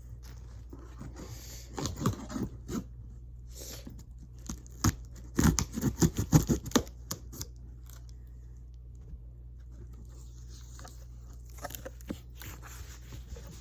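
Packaging of a large cardboard box being torn and scraped open by hand, in irregular bursts. The loudest is a quick run of rips and scrapes about halfway through.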